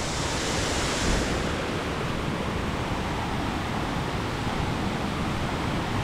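Steady rush of a waterfall, an even roar of falling water; its hiss dulls a little about a second and a half in.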